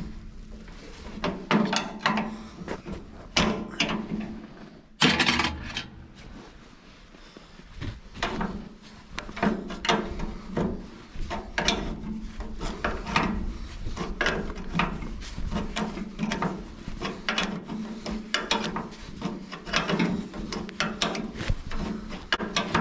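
Socket wrench ratcheting and clicking on metal as the mounting bolts of a Farmall B tractor's old ignition resistor are worked loose, with one loud clank about five seconds in. A faint steady low hum runs underneath.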